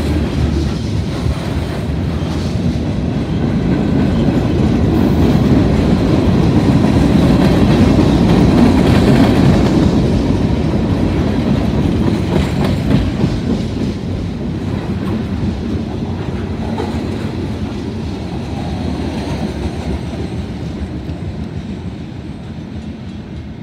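Freight train of covered hoppers and boxcars rolling past at a grade crossing, a dense rumble of steel wheels on rail. It is loudest a few seconds in, then fades steadily as the end of the train passes and draws away.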